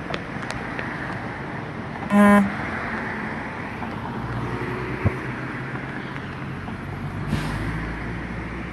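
Road traffic running steadily, with a short car-horn toot about two seconds in, the loudest sound. A single sharp click comes near the middle, and a vehicle passes near the end.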